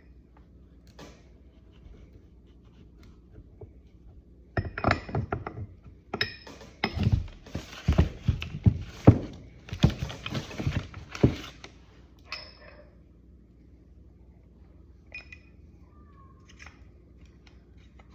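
Steel kingpin and steering-knuckle parts clinking and knocking as they are handled and fitted: a short cluster of knocks about four and a half seconds in, then a longer run of knocks and metallic rattling from about six to eleven seconds in, with a few single clicks after.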